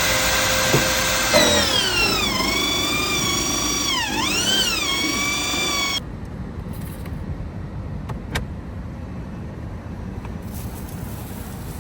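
A power tool runs with a high whine that sags in pitch, dips and picks up again, then stops abruptly about six seconds in. After that only a low steady background remains, with a single click.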